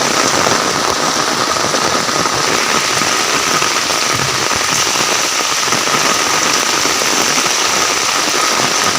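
Steady heavy rain falling, a dense even hiss that goes on without a break.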